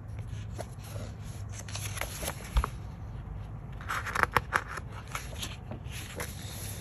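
Pages of a printed art book being turned and handled by hand: light taps and clicks, with a louder papery rustle and flap about four seconds in as a page is turned.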